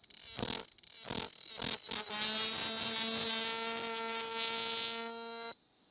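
Cicada singing: a run of short buzzing pulses that come faster and faster, merging about two seconds in into one continuous loud buzz that cuts off suddenly about three and a half seconds later.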